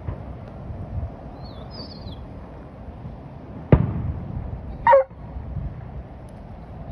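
A distant firework shell bursting with a single sharp boom about four seconds in, over steady background noise. About a second after the boom comes a short, loud pitched call, and a faint high chirp is heard near two seconds.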